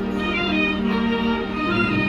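High school marching band with its front ensemble playing a slow passage of long held notes.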